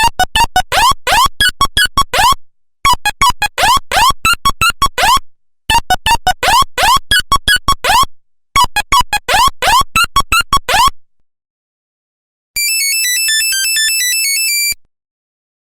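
Nokia 1100 mobile phone ringtones, simple monophonic electronic beeps. A fast melody of short notes plays four times over with brief gaps. After a pause, a second, buzzier ringtone of stepping beeps plays for about two seconds and stops.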